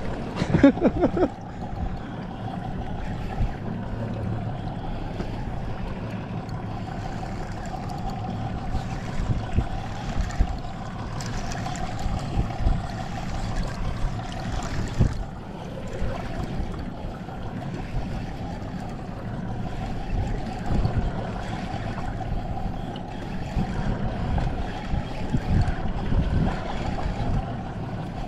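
Spinning reel being cranked steadily to retrieve a lure, a continuous slightly wavering whir, over wind buffeting the microphone and sea slapping at the boat. A short loud burst about a second in.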